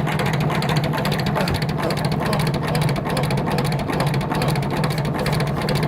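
Two-frame hand-cranked honey extractor spinning uncapped frames: a steady, fast whirr of gears and drum, running evenly and winding down right at the end.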